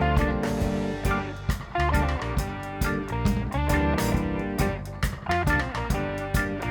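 Background music: guitar-led track with a steady drum beat.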